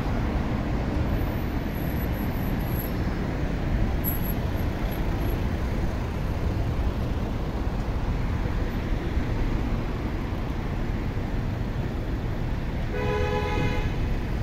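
Steady rumble of city traffic, with cars, taxis and buses running past. A car horn sounds briefly near the end.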